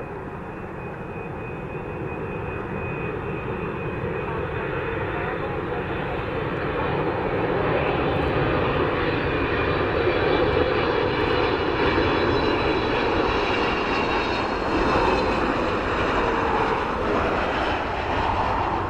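Boeing 777 freighter's twin GE90 turbofan engines on final approach: a steady jet rumble with a high fan whine, growing steadily louder as the aircraft comes in low toward touchdown.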